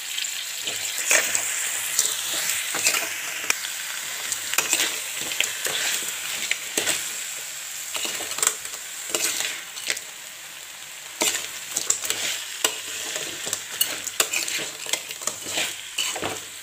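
Crab pieces frying in onion-tomato masala in a metal kadai, sizzling steadily while a steel spoon stirs them and clicks and scrapes against the pan many times.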